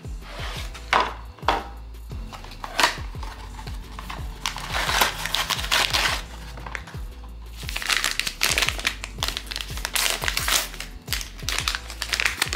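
Crinkling and rustling of a blind-box figure's sealed foil pouch being torn open and handled. A few sharp crackles come in the first three seconds, then longer spells of dense crinkling from about four and a half seconds and again from about seven and a half seconds, over soft background music.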